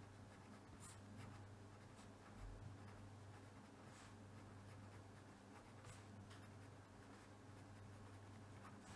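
Faint scratching of a fine-tipped pen writing words on paper, with a few soft taps of the tip, over a low steady hum.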